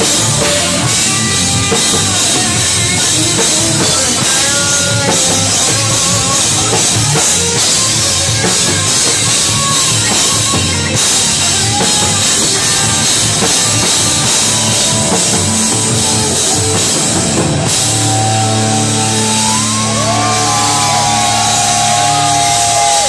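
Live band playing loud, heavy distorted rock: pounding drum kit, electric guitar and bass. About eighteen seconds in, the drumming gives way to a held, ringing chord with a sliding higher tone over it.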